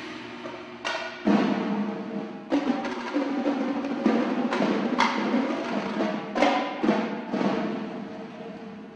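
Indoor drumline performing: marching drums play sharp accented hits at uneven intervals over steady ringing pitched tones from the front-ensemble mallet keyboards.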